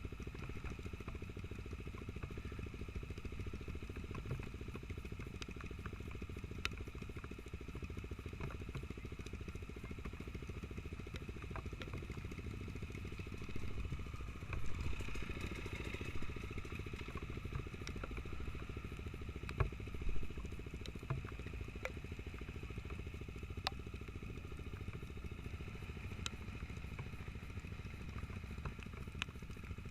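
Motorcycle engine running steadily, with scattered clicks and clatter.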